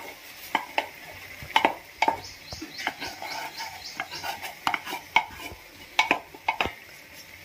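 Steel bowl and spoon clinking and scraping against a steel pan as fried egg pieces are tipped and scraped into the masala: about a dozen sharp, irregular clinks over a faint sizzle from the pan.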